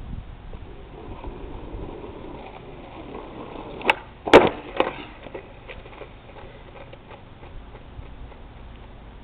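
Skateboard wheels rolling on asphalt, then a sharp pop of the tail striking the road about four seconds in, followed by a loud slap and a few clattering hits as the board and rider come down on the road. The trick is not landed: the board ends up upside down on the asphalt.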